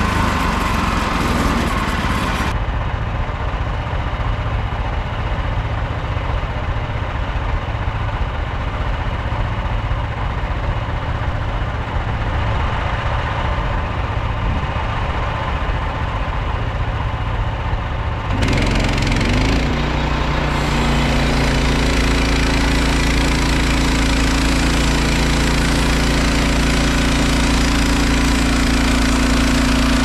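Frontier OS27 portable bandsaw mill: its engine running under load as the band blade cuts through a Scots pine log. It eases to lighter running about two seconds in, and the cutting sound returns about eighteen seconds in.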